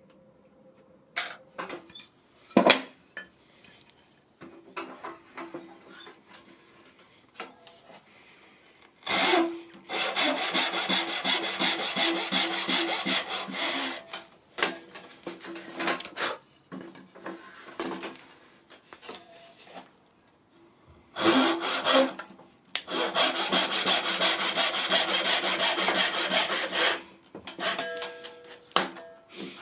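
Hand saw cutting through a green-wood spoon blank, in two long stretches of sawing, one about five seconds and one about four seconds long. Between them are knocks and handling of the wood, and a sharp knock about two and a half seconds in.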